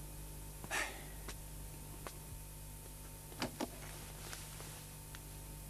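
Quiet room tone with a steady low hum, broken by a few brief soft noises: one about a second in and two close together a little past three seconds.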